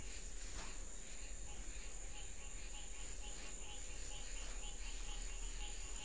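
Night insects, crickets among them, chirping: a constant high-pitched whine, with a run of short chirps repeating about three times a second from about two seconds in.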